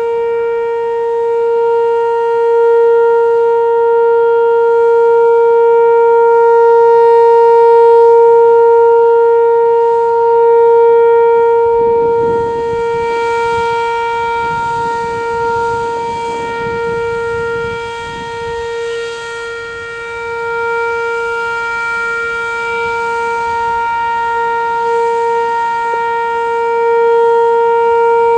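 Whelen WPS-2807 electronic outdoor warning siren sounding a steady, unwavering tone during a tornado siren test, its loudness slowly swelling and fading.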